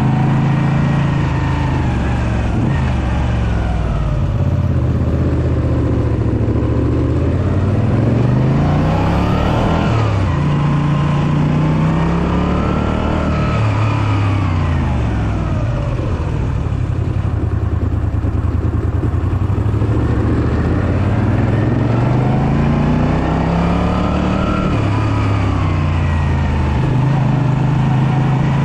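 Moto Guzzi V7 III Racer's air-cooled transverse V-twin pulling the motorcycle uphill. The revs rise and fall several times as the throttle is opened and closed and the gears change.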